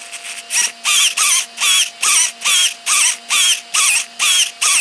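Steering servo of a Feiyue FY06 RC crawler whining in short repeated bursts, a little over two a second, as it swings the front wheels back and forth. The steering, freshly greased with white lithium grease where the aluminium parts were binding, is turning much smoother now.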